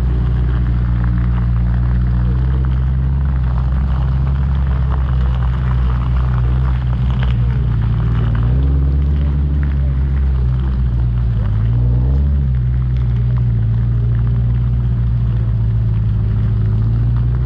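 Off-road 4x4's engine running as it drives a rough track, heard from the bonnet, loud and steady with a rough rattling noise over it. About halfway through, the engine note drops and climbs back twice in quick succession.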